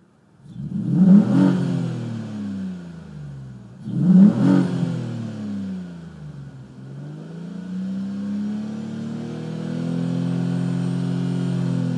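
Vauxhall Vectra V6 engine revved twice, rising from silence and falling back each time, then held at a steady raised speed. The owner says this engine has a misfire.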